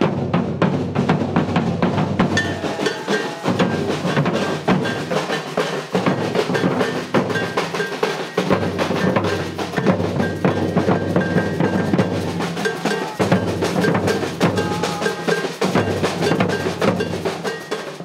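Maracatu percussion ensemble playing: deep bass drums and snare drums in a dense, steady rhythm, the deep drums dropping out briefly a few times.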